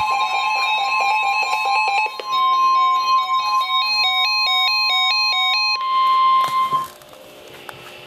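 Several NOAA weather alert radios sounding at once: the steady 1050 Hz warning alarm tone with other radios' alert beeps layered over it. About two seconds in, one radio's alert changes to a fast stepping pattern of beeps. The tones cut off around seven seconds in, leaving a faint hum.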